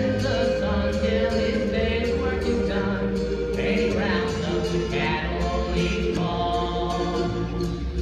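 A young man singing a country cowboy song through a microphone, holding long notes, over a musical accompaniment with a steady beat.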